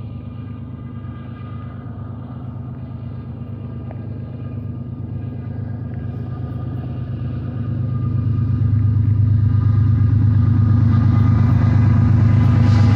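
Approaching freight train's four-unit lashup of GE ES44 and EMD SD70ACe diesel-electric locomotives, a steady low rumble that grows steadily louder as the train closes in, with wheel-on-rail noise starting to rise near the end.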